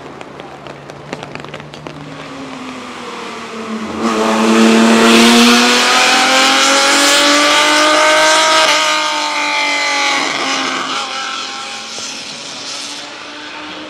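A 1960s Ferrari 250-series three-litre V12 race car accelerating past at full song, its engine note rising in pitch and loudest from about four seconds in. An upshift drops the pitch about nine seconds in, and the car then pulls away and fades. A few sharp cracks sound in the first second or two.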